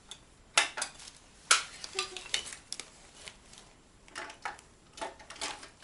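Dishes and cutlery clinking: a scattering of short, sharp clinks and knocks at irregular intervals.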